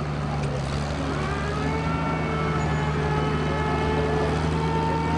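Vintage farm tractor's engine running, its pitch rising about a second and a half in and then holding steady as the revs come up.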